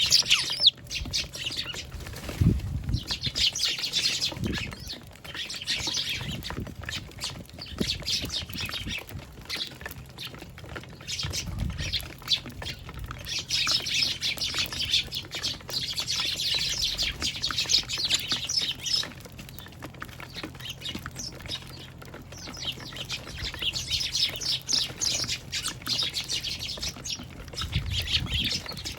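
A flock of Eurasian tree sparrows chirping in dense bouts, busiest in the middle and near the end, with a few low thuds among them.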